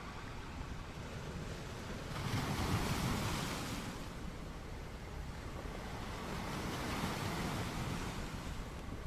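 Sea waves and wind on an outdoor microphone: a steady rushing hiss that swells twice, about two seconds in and again about seven seconds in.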